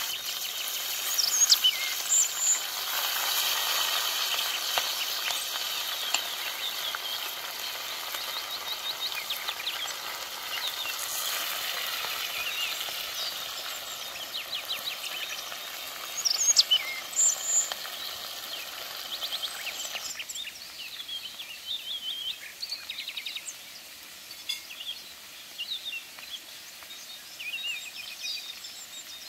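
Fish frying in oil in a wide iron pan over a wood fire, a steady sizzle, with birds chirping throughout. The sizzle drops away about two-thirds through, leaving mostly birdsong.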